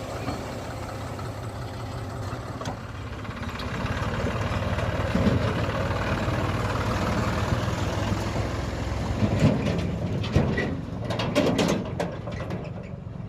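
Heavy diesel engine running steadily, getting louder a few seconds in, with several sharp knocks and clanks near the end.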